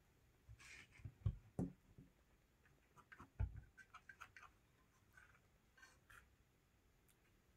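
Faint scattered clicks and light taps. There are soft knocks about a second in and again near three and a half seconds, then a quick run of small clicks.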